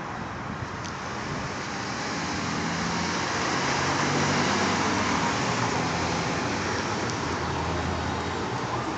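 Cars driving through a street intersection, with tyre and engine noise. The sound swells to a peak about four seconds in as a minivan goes by, then eases off as a sedan passes near the end.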